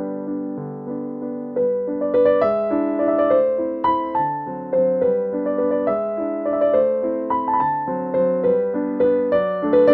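Background piano music: a gentle melody of single notes over held chords, each note struck and fading.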